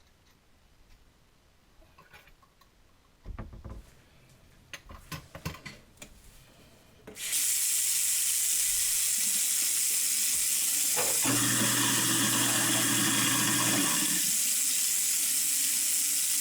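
A few knocks and clicks, then a tap starts running water into a kitchen sink about seven seconds in and runs steadily. About four seconds later a garbage disposal motor hums under the running water for about three seconds, then stops.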